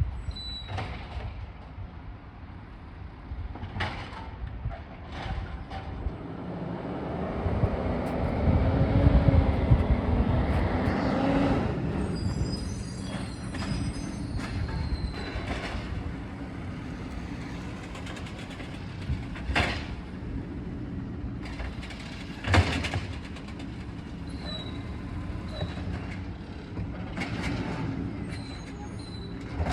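Refuse truck at work on a yard waste pickup: its engine rises to a loud rumble for a few seconds, then high metallic squeals and two sharp clanks, the later one the loudest.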